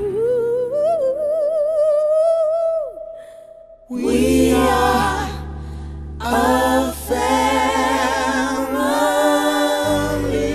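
Background music with singing: a solo voice holds one long note with vibrato that fades out, then after a short dip the song comes back fuller, with several voices over a steady bass, about four seconds in.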